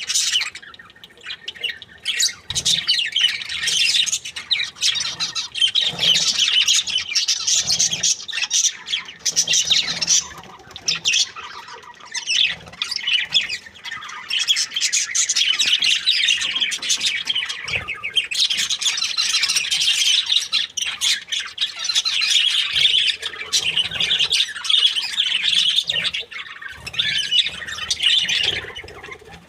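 Budgerigars chirping and warbling with continuous, busy chatter, broken by occasional squawks.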